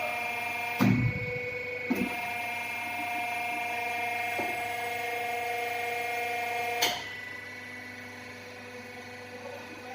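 CNC pipe bending machine running with a steady multi-tone whine, with two thumps about one and two seconds in; the whine cuts off with a sharp click about seven seconds in.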